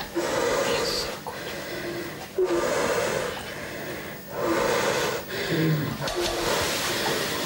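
A woman in labour breathing heavily through a contraction: about five long, loud breaths in and out, some carrying a brief hum of voice.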